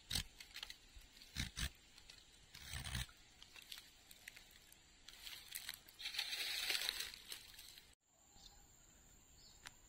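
A plant stem scraped and tapped against tree bark: a few scattered taps and scratches, then a longer rustling scrape about six seconds in. The sound cuts off suddenly about eight seconds in.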